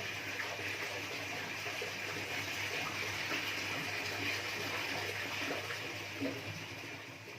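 Steady rushing, water-like noise with a faint low hum underneath, easing off slightly near the end.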